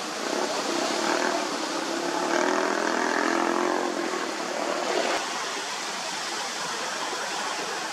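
Small sea waves washing up on a sandy shore, a steady rush of surf. A faint motor hum rises and fades over it during the first half.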